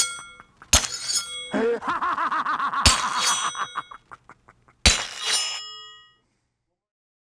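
Sound effects for a logo sting: three sharp metallic hits about two seconds apart, each ringing out, with a warbling tone between the first two and quick light ticks. It dies away about six seconds in.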